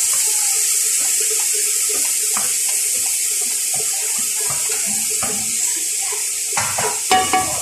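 Carrots, tomato and chilli sizzling in hot oil in a cooking pot: a steady, bright hiss, with light knocks of a utensil and a short clatter near the end.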